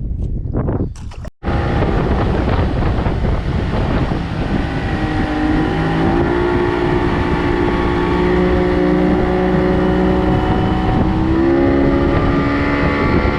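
Boat outboard motor running under way, its pitch shifting a little, with wind rumbling on the microphone. It starts abruptly just over a second in.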